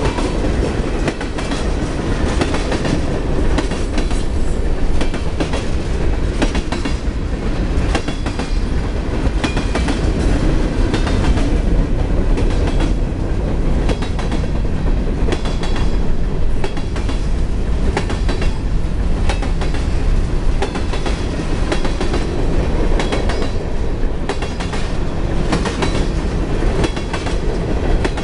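Freight train cars, mostly tank cars and covered hoppers, rolling past at steady speed: a continuous rumble with frequent clicks and knocks of the wheels over the rail joints.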